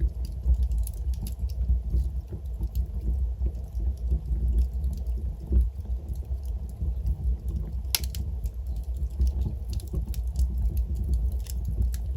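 Wood logs burning in a fireplace: a steady low rumble of flame with frequent sharp crackles and pops, and one louder pop about eight seconds in.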